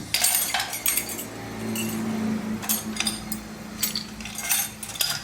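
Metal tools and small engine parts clinking against each other in a string of sharp clicks and clinks, with a steady low hum underneath from about two seconds in.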